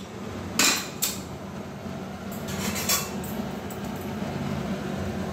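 Metal clatter from an open aluminium pressure cooker being handled: two sharp clanks about half a second apart near the start, then a few lighter clinks. A steady low hum runs underneath.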